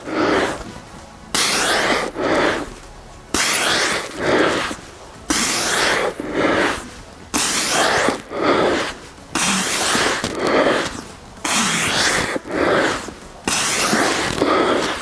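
A man breathing hard under exertion during reverse snow angels, with a loud, sudden breath followed by a softer one about every two seconds in time with his reps.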